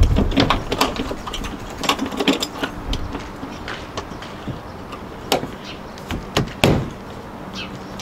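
Scattered clicks and knocks of an A-frame camper's roof latch being worked by hand, with a few sharper knocks about five and a half and six and a half seconds in.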